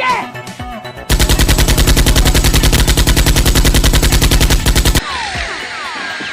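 Automatic machine-gun fire sound effect: a long burst of rapid, evenly spaced shots that cuts off suddenly about five seconds in. It is followed by a scatter of short falling whistles.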